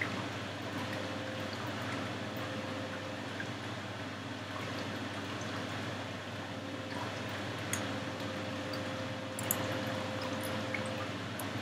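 Steady background hiss of a recording room with a faint low hum, and a few faint computer-mouse clicks as context menus are opened.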